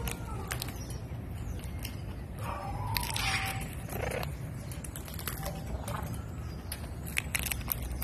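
Severe macaw biting and cracking peanut shells with its beak: scattered sharp crunching clicks, with a quick cluster of them near the end.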